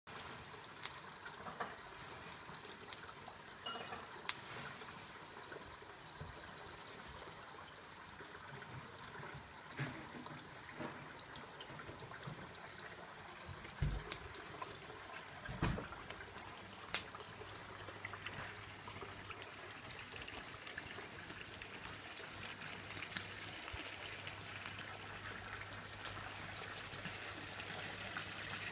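Water trickling steadily from a blade waterfall into a small pond, growing a little louder toward the end, with scattered sharp clicks and two low thumps near the middle.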